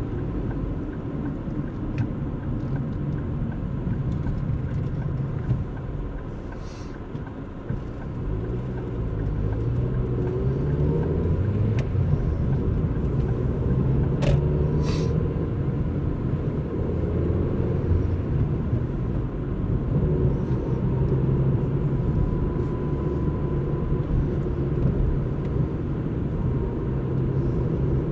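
Car driving: steady engine and road rumble, with the engine note climbing in steps about eight to twelve seconds in as the car speeds up through the gears, then holding steady.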